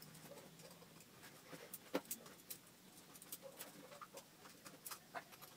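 Faint scattered clicks and light scrapes of a small hand tool against the metal and plastic parts of a BT Delta Elite paintball marker as its lower grip section is unscrewed and pulled off, with one sharper click about two seconds in.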